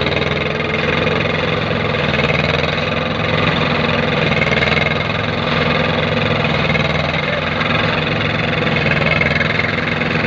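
Engine of a concrete kerb-stone making machine running steadily, a constant even hum with a fainter wavering whine above it.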